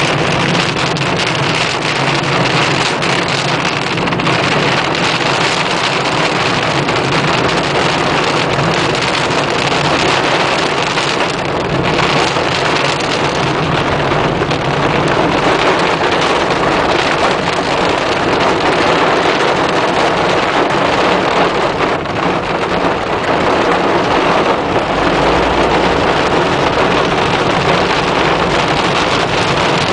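Heavy rain on a car in a thunderstorm: a loud, steady hiss of water, with a low engine-like hum beneath it that fades about halfway through.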